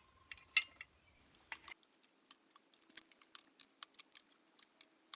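A rapid series of small sharp metal clicks, several a second, as a gas fitting is screwed onto a propane regulator.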